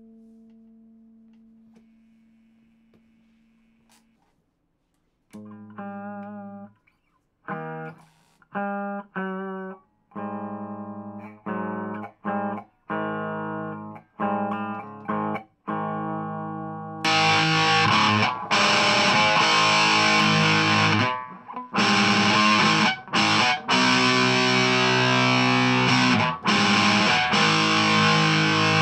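Electric guitar, an Epiphone Les Paul Standard through a Marshall Origin 20 valve head and 2x12 cabinet. A held note dies away, and after a short pause single chords are struck and let ring with gaps between them. About seventeen seconds in, louder, thicker overdriven chords take over, broken by a few short stops.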